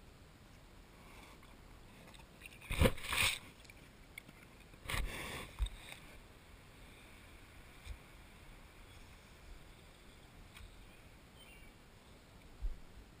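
A bear at close range to the microphone, making two loud, short, noisy bursts about three and five seconds in and a brief one near the end.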